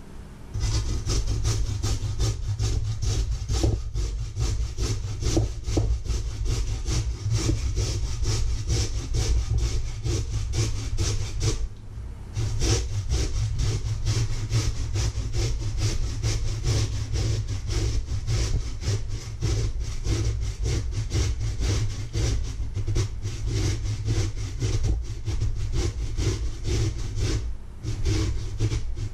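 Peeled potato being grated by hand on a flat stainless steel grater standing in a metal bowl: fast, continuous rasping strokes, briefly breaking off twice.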